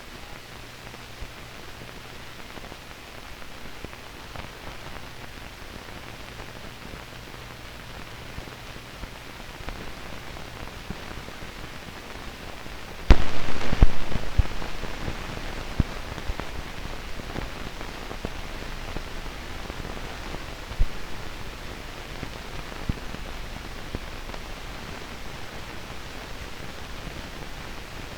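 Hiss and crackle of an old film soundtrack, with a faint hum in the first ten seconds. About 13 seconds in, a sudden loud burst of noise dies away over a couple of seconds, and scattered clicks and pops follow.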